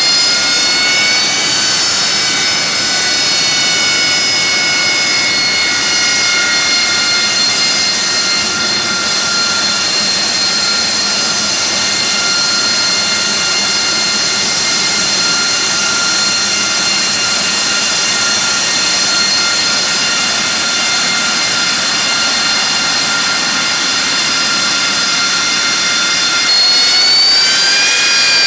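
Jet engine of a taxiing AV-8B Harrier II, a Pegasus turbofan, giving a steady high whine over a loud rush. Near the end the whine rises in pitch and grows a little louder as the engine spools up.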